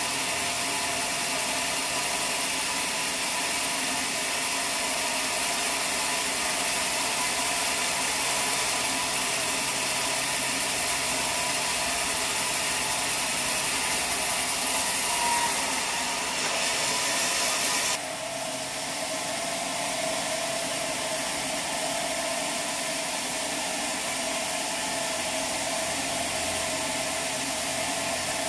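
Sawmill machinery running steadily, a constant hum of several steady tones under a hiss. About 18 seconds in the sound changes abruptly, with the hiss dropping away and the hum carrying on.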